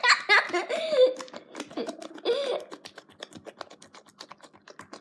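Slime being squished and kneaded by hand, giving rapid, irregular small clicking pops. A child's voice, laughing, is heard in the first second and again briefly around two seconds in.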